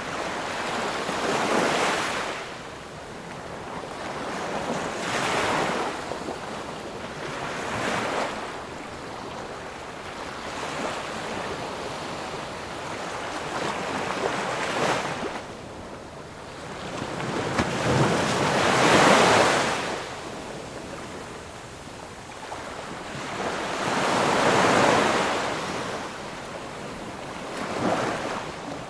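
Ocean waves breaking and washing ashore, each wave a rushing swell that rises and falls, several seconds apart, with the largest about two-thirds of the way through.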